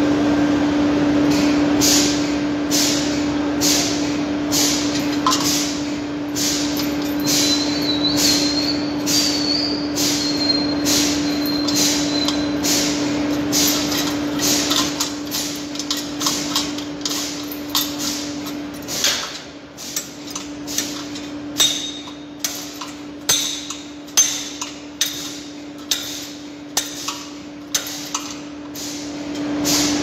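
Repeated sharp metal clanks, about one or two a second, over a steady machine hum that drops out a little past halfway and comes back near the end.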